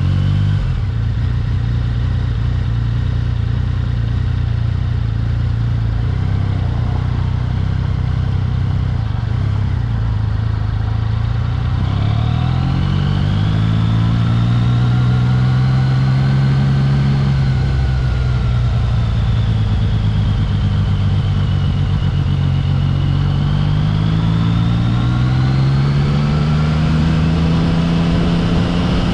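Yamaha XSR900's inline three-cylinder engine running under way: a steady engine note for the first dozen seconds, then the pitch climbs, eases off and climbs again several times as the revs rise and fall.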